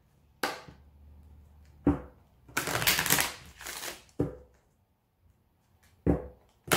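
A deck of Lenormand cards being shuffled by hand: a handful of short rustling bursts of card noise, with a longer one of about a second near the middle.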